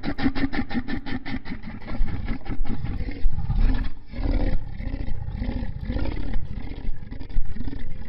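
Reconstructed Pachycephalosaurus call: a deep animal rumble that starts as a fast rattling pulse, several beats a second, then turns into low warbling swells about twice a second before cutting off at the end.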